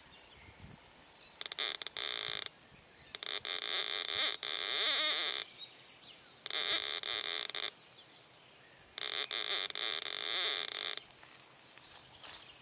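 Vega pulse-induction metal detector's electronic signal tone sounding in four bursts of one to two seconds, the pitch wavering, as it picks up a buried clay pot of coins.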